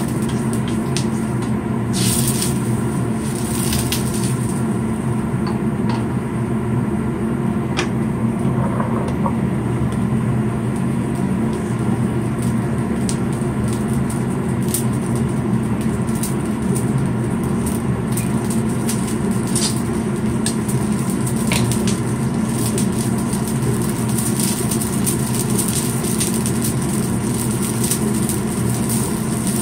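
A steady low hum, with a few short clicks of a spatula against the wok of simmering beef and radish broth.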